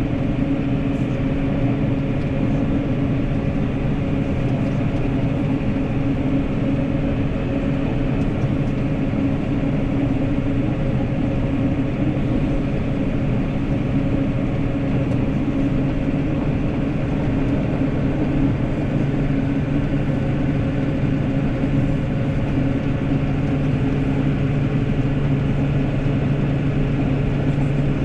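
New Holland tractor's diesel engine running steadily while pushing snow with a front-mounted Hauer plow blade, its drone getting a little stronger in the second half.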